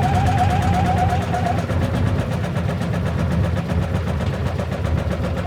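Washing machine running with a loud, rapid, even banging, about ten knocks a second. A wavering whine sits over it for the first second and a half.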